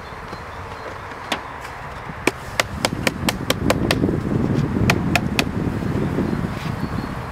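Sharp tapping and knocking of a metal hive tool and wooden beehive parts: a single tap, then a quick run of about eight clicks, then three more about a second later, over a low rumble.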